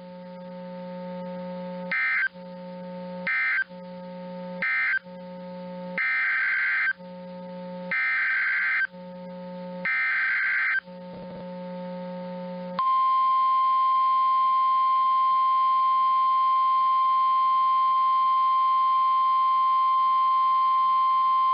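Emergency Alert System SAME data bursts: three short bursts, then three longer buzzing ones about a second apart. They are followed, about 13 seconds in, by the single steady NOAA Weather Radio 1050 Hz warning alarm tone, which runs on without a break.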